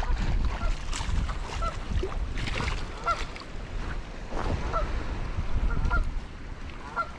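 Geese honking repeatedly, short calls about once or twice a second, over splashing as a trout thrashes in a landing net at the water's edge.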